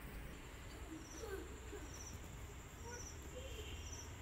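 Night insects calling: one gives a short, high chirp about once a second over a steady high insect drone. A few faint short low calls come about a second in.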